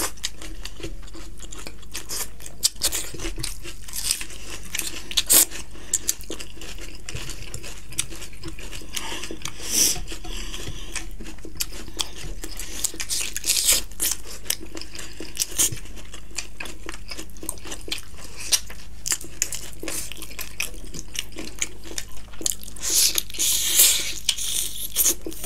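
Close-miked eating: two people chewing mouthfuls of rice and chicken curry, with many short wet mouth clicks and smacks, and fingers scooping rice from plates. The clicks bunch up about ten seconds in and again near the end.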